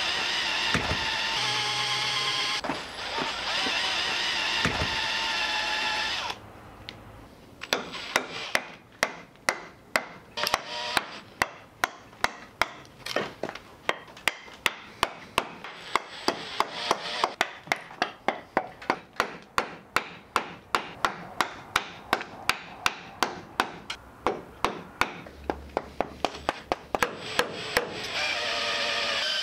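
Cordless drill with a Forstner bit boring into hardwood, running steadily with one brief pause. The drill stops and a wooden mallet strikes a chisel over and over, about two or three blows a second, chopping out the waste between the drilled holes to cut a half-inch-deep pocket. The drill runs again near the end.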